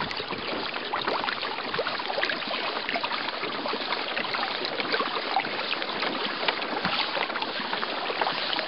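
Water lapping and splashing against a small boat's hull: a steady rush of many small splashes.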